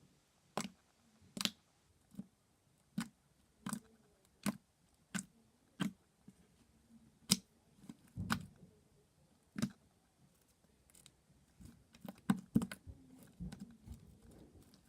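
Slime being pressed and folded by hand, giving sharp clicking pops of trapped air, about one every three-quarters of a second at first, then more irregular with a quick cluster near the end.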